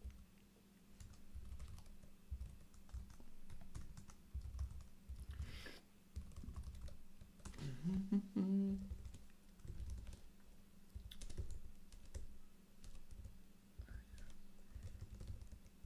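Typing on a ThinkPad laptop keyboard: irregular runs of keystrokes with short pauses. A brief rising hum comes about halfway through.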